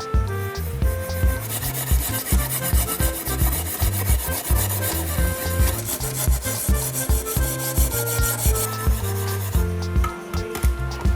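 Rasping, filing strokes on a hard surface, densest from about a second and a half in until near the end, over background music with a steady beat.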